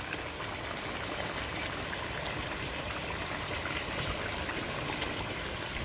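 Chicken and spices sizzling steadily in a cooking pot over a high flame, with a couple of faint clicks.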